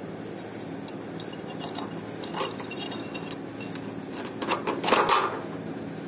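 Metal clinks and clicks of a handmade iron padlock being worked with its key and opened, the lock body coming apart from its shackle. The loudest cluster of clinks comes about five seconds in, over a steady low background hum.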